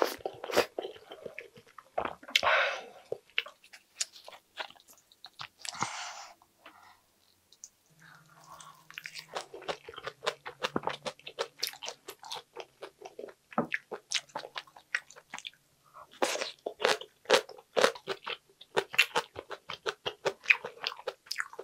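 Close-miked mouth sounds of a person chewing a mouthful of spicy pork gopchang. A few louder wet bursts come in the first six seconds. From about nine seconds in, fast, steady, sticky chewing clicks follow.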